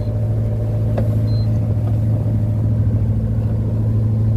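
Motor boat's engine running steadily under way, a constant low drone heard from inside the wheelhouse. A faint click about a second in.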